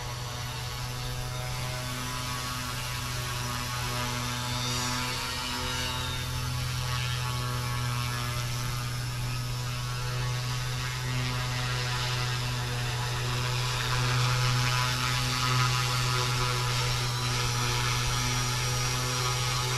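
FW200 RC helicopter's direct-drive electric motor and main rotor in low flight: a steady buzzing hum with a higher whine over it. It gets a little louder about two-thirds of the way in.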